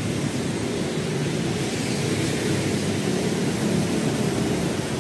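Steady low rumble of nearby street traffic, with no single event standing out.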